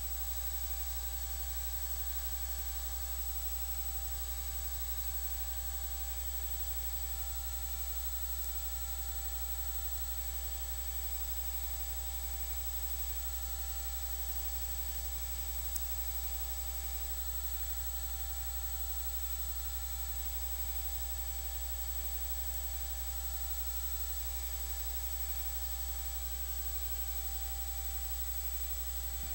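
Steady low electrical hum with hiss and a few faint steady tones, unchanging throughout; one tiny click about halfway through.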